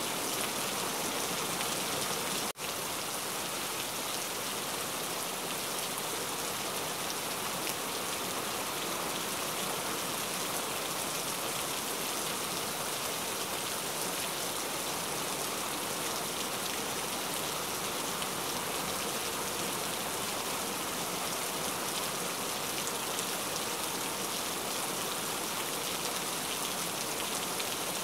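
Heavy rain falling in a steady, dense hiss, with a momentary dropout about two and a half seconds in.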